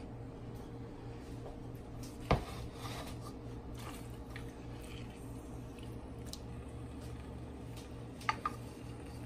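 Wooden spoon stirring wet marinated chicken pieces in a large aluminium pot: soft squishing and scraping, with one sharp knock of the spoon on the pot about two seconds in and two lighter knocks near the end, over a steady low hum.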